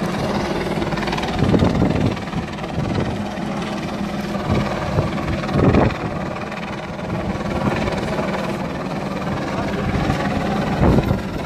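A steady engine drone over the noise of a crowd, with a few short louder bursts.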